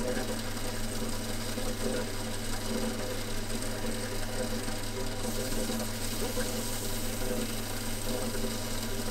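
Belt-driven workshop machine running steadily: a constant motor hum over an even hiss.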